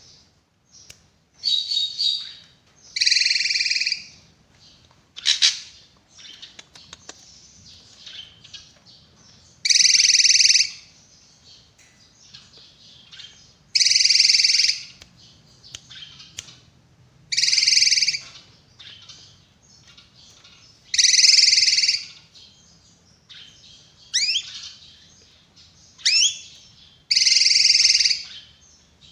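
Drongo (srigunting) singing: loud, harsh, buzzy calls about a second long, repeated every three to four seconds, with softer twittering notes between them and a couple of quick rising whistles near the end.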